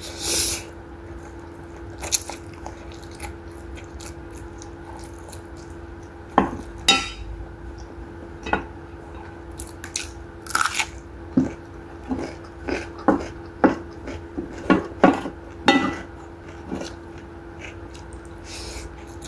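Close-miked eating of a plate of rabokki noodles: a slurp of noodles at the start, then chewing with many short wet clicks and crunches, including a bite into a small green lime. A faint steady hum runs underneath.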